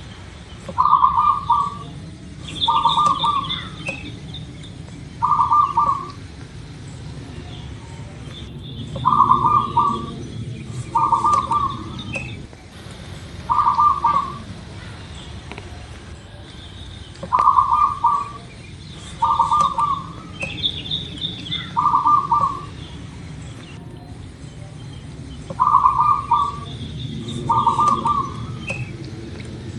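Zebra dove (perkutut) song: groups of three short bursts of rapid cooing notes, each group repeated about every eight seconds. Fainter high chirps of other small birds come between the phrases.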